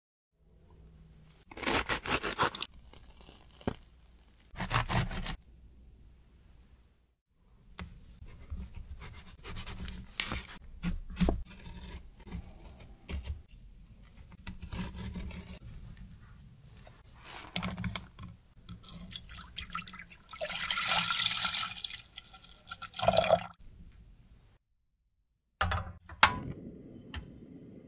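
Close-up kitchen handling sounds: a knife splitting and scraping a vanilla bean on a plastic cutting board, with many small clicks, taps and scrapes. Near the end there is a sharp click, then a steady low hiss from the gas burner under a saucepan of milk.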